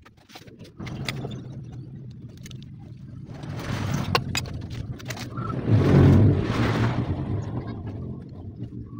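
A motor vehicle passing by: its engine hum builds to a peak about six seconds in, then fades. A sharp click sounds about four seconds in.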